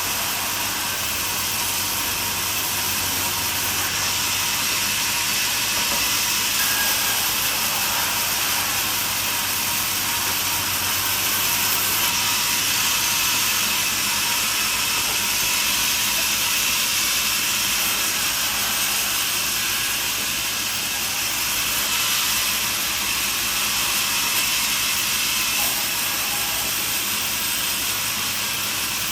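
Portable band sawmill running steadily, its blade cutting through a log with a continuous hissing saw noise.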